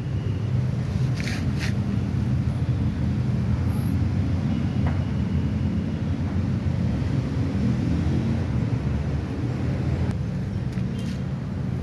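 Steady low rumble of a running vehicle engine, with a few brief faint clicks about a second in and again near the end.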